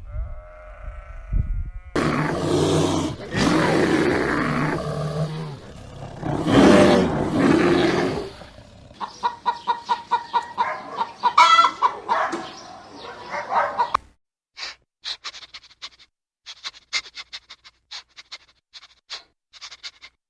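A run of different animal calls one after another: a short high call, then several seconds of loud, rough calls, then a fast run of pulsing calls, then a scattering of short sharp clicks.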